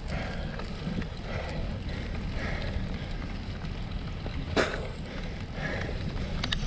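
Cyclocross bike being raced over wet, muddy ground, with wind rumbling steadily on the microphone and the bike rattling and clicking. One sharp clack comes a little past halfway, and a few smaller clicks near the end.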